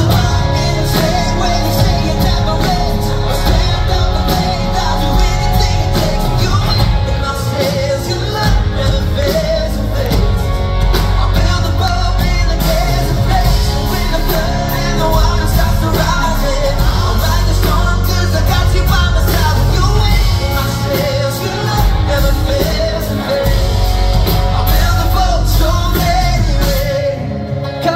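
Live pop-rock band with a male lead singer, loud and continuous, with heavy bass and drums under the vocal. The deep bass drops away near the end.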